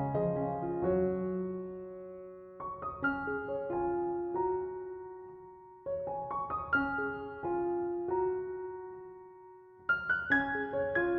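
Solo piano music, slow and gentle: chords and short runs of notes that ring and fade away, a new phrase starting about every three to four seconds.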